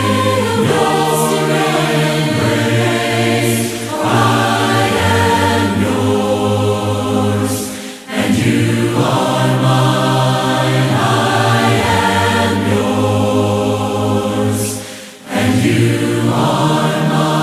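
A cappella choir singing a hymn in long held chords, with short breaks between phrases about 4, 8 and 15 seconds in.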